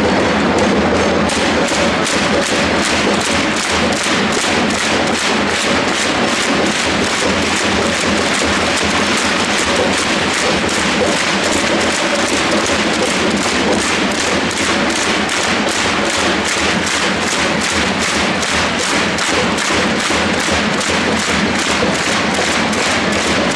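Football supporters' drums beating steadily about twice a second, starting about a second in, under a stadium crowd chanting together.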